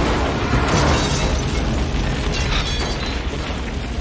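Movie explosion sound effect: a car blown up in a fireball, a continuous heavy rumbling blast of fire that swells in the first second and then slowly dies down.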